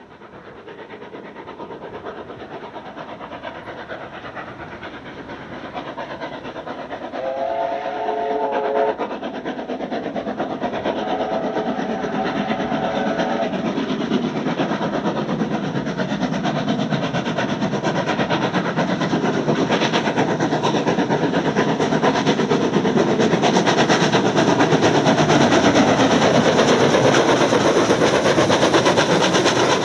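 NSW 35 class 3526 and 36 class 3642 steam locomotives double-heading a train, their exhaust beats and running gear growing steadily louder as they approach and pass. A steam whistle blows twice, a short blast about seven seconds in and a longer one about eleven seconds in.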